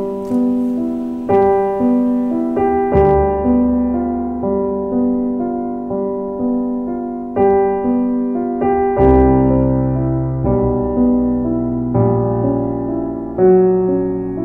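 Background piano music: gentle chords struck about every second or so, each fading out, with a deeper bass line coming in about nine seconds in.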